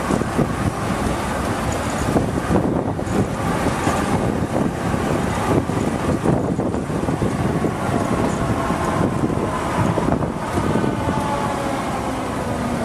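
Trieste–Opicina tram car running along its track: a steady rumble with dense rattling and knocking of wheels on the rails, and a faint wavering whine in the second half.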